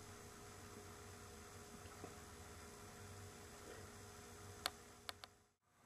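Near silence: quiet room tone with a faint steady hum, broken by three short faint clicks in quick succession near the end.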